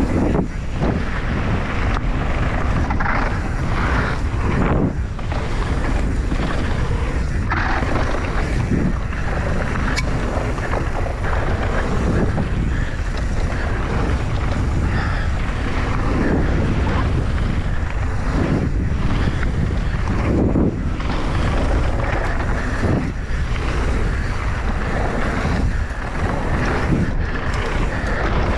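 Wind rushing over the microphone during a fast downhill mountain-bike run, with the rumble of tyres on the trail and irregular knocks and rattles from the bike over rough ground.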